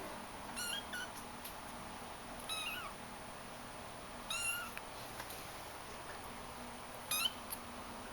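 Shaded golden Persian kittens meowing: four short, high-pitched meows about two seconds apart, from kittens wanting to be let out into the next room.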